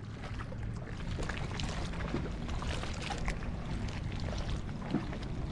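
Small waves lapping and sloshing against a kayak's hull, with scattered light ticks.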